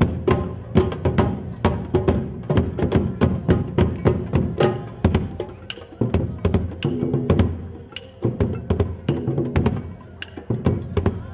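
Percussion-led music: drums with sharp, wood-block-like clicking strikes coming several times a second over pitched instruments.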